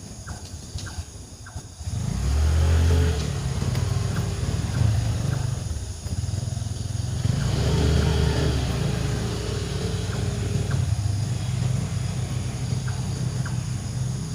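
A motor vehicle engine running close by: a low hum starts suddenly about two seconds in, swells twice, then holds steady.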